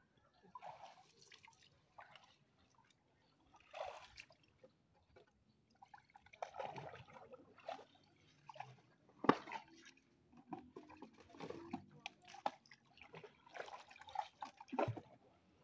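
Paddle strokes in floodwater beside a canoe: faint, irregular sloshes, drips and trickles of water as the blade dips and pulls, several in a row.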